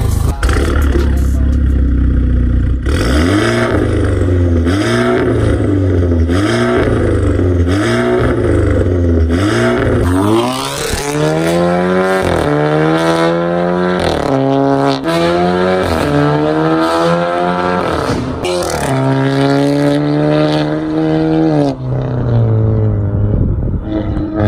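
Audi A4 B9 with an Armytrix aftermarket exhaust: the engine idles, then is revved in short blips about once a second. It then accelerates hard through the gears, the exhaust note climbing and dropping back at each upshift, and fades off near the end.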